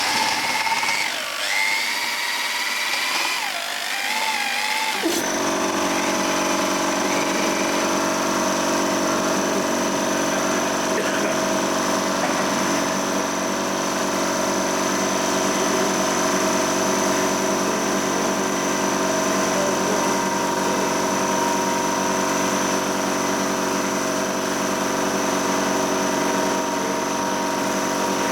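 A machine running steadily with a drone of many fixed tones and a thin high whine, cutting in abruptly about five seconds in; before that, wavering pitched sounds.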